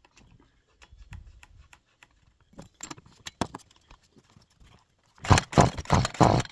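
Stihl two-stroke strimmer's recoil starter being pulled, a loud rattling run of strokes near the end after faint clicks of handling the engine; the engine does not fire.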